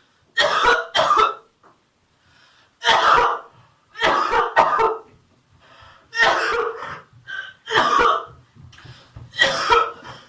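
A person's staged coughing fit, put on as a prank: harsh coughs in about six bouts, each half a second to a second long, one to two seconds apart.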